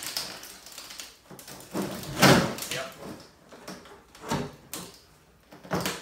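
Knocks, thumps and scraping as a freshly cast lightweight perlite-concrete hive lid is worked loose and pulled out of its mold on a workbench. The loudest thump comes about two seconds in, with more knocks near four seconds and at the end.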